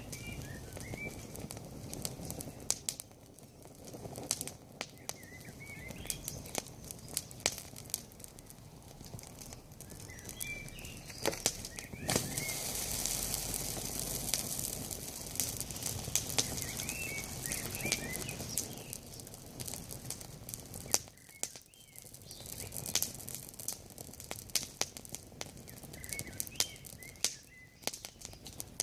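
Wood campfire crackling with many sharp pops. A rushing hiss swells from about twelve seconds in and dies down about six seconds later, and a songbird sings short chirping phrases every few seconds.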